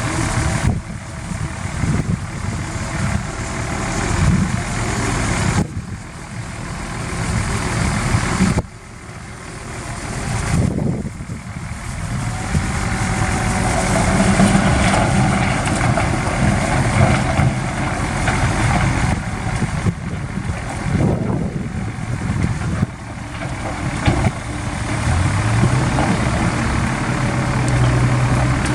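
Heavy diesel engines of earthmoving machinery running, with the sound changing abruptly a few times and an engine note rising near the end as it revs up.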